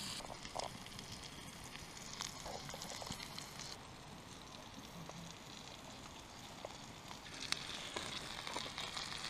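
Brook trout frying in butter in a small cast-iron skillet over campfire coals: a low sizzle with scattered crackles. It fades for a few seconds in the middle, then comes back.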